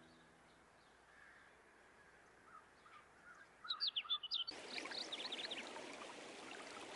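Faint small songbirds chirping, with a quick run of short, falling chirps a little past halfway. A steady outdoor hiss comes in about two-thirds of the way through.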